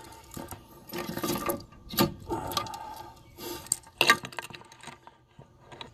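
Footsteps on gravel beside a car, with a few sharp clicks and knocks, the loudest about two seconds in and again about four seconds in.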